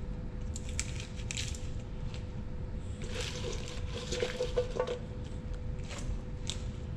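Fresh spinach leaves rustling and crinkling as handfuls are grabbed from a stainless steel bowl and pushed into a Thermomix TM6 mixing bowl, in several short bursts.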